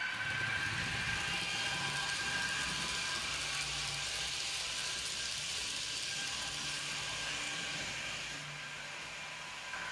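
H0-scale model trains running on the layout: a steady whir of electric motors and wheels rolling over the track.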